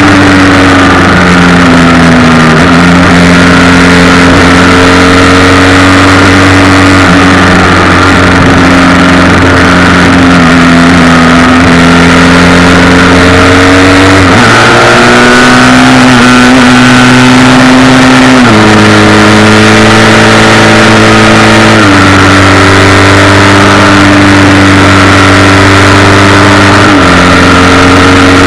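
Motorcycle engine at cruising speed, recorded loud by a cheap helmet- or bike-mounted action camera, with the vibration rattle the uploader warns is bad. The engine note steps up and down in pitch about five times, and holds steady in between.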